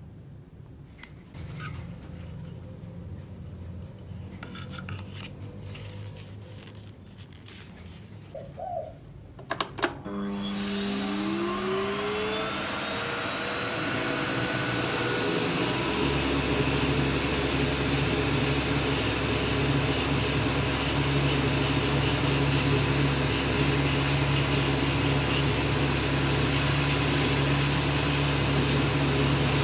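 Soft handling noises, then a switch clicks about ten seconds in and a red bagless cyclone canister vacuum cleaner starts: its motor whines up in pitch over several seconds and then runs steadily and loud. It is vacuuming dust off an air purifier's cylindrical filter through a brush nozzle.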